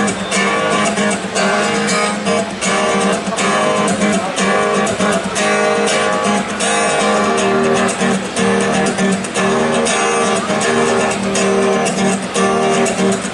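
Acoustic guitar strumming chords in a steady rhythm: the song's instrumental intro, with no vocals yet.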